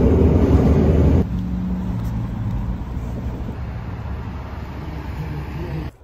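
Inside a moving Chicago 'L' train car: loud rumbling ride noise that drops suddenly about a second in to a quieter, steady hum with a low drone.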